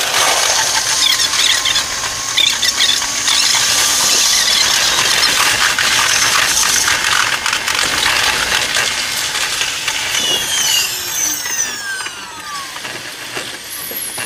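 Electric train running noise sped up eightfold: a dense, high-pitched rush of wheel and rail noise with squealing and rapid clicks. Around the last third, several quickly falling whines as the train slows into the station.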